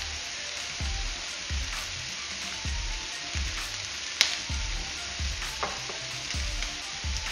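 Chicken pieces and chopped leek sizzling steadily in a frying pan, with a single sharp click about four seconds in.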